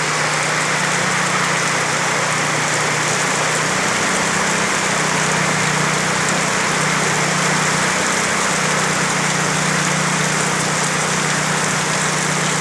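Heavy rain pouring down in a steady, even downpour. A steady low hum runs underneath.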